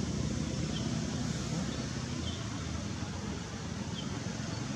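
Steady low outdoor background rumble, with faint short high chirps repeating about every second and a half.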